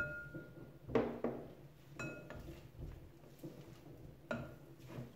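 Potato masher pressing into boiled potatoes in a glass bowl, with a handful of separate knocks and clinks of the masher against the glass. Two of the clinks, at the start and about two seconds in, ring briefly like struck glass.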